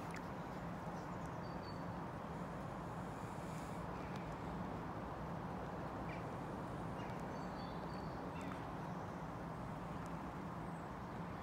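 Steady outdoor background hum with a low drone, with a few faint, short high bird chirps.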